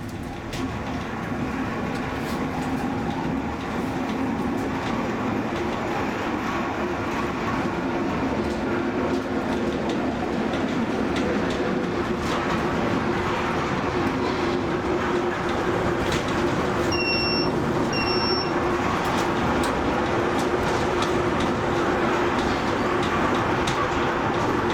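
Zecca–Righi cable funicular car running up its tunnel: a steady rumble of wheels on rail with a low hum and scattered clicks, growing louder over the first few seconds as the car gathers speed. Two short beeps sound about two-thirds of the way through.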